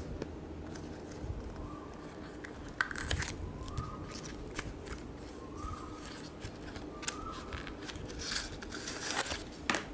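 Paperboard pen box being handled and opened: card flaps sliding and scraping, with scattered small clicks and rustles, busiest near the end.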